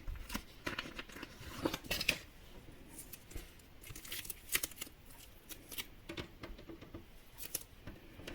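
Sheets of double-sided tape being handled, peeled and pressed onto a board: faint, irregular crinkles, rustles and small clicks.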